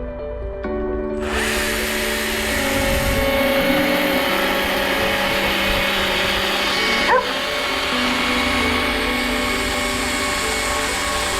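Slow background music; about a second in, a power tool used for wood carving starts and runs steadily, a loud, even rushing noise under the music. A brief sharp sound with a quick pitch glide stands out about seven seconds in.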